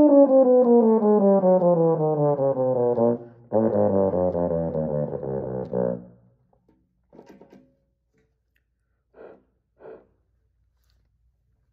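Euphonium playing a smooth run of notes stepping steadily downward, a brief break, then a second faster descending run that ends about six seconds in. A few faint short sounds follow.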